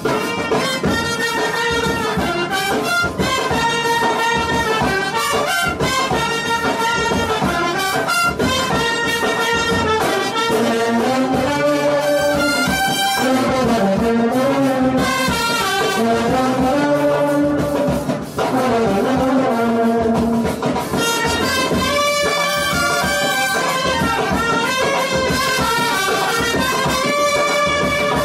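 Brass band music: trumpets and trombones play a wavering melody with sliding notes over a steady drum beat.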